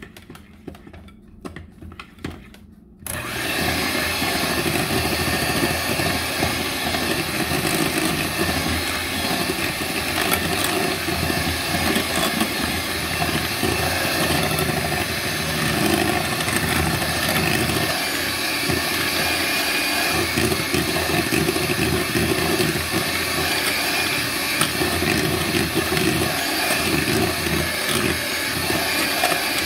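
Electric hand mixer switched on about three seconds in, then running steadily with its beaters working through a thick batter in a glass bowl.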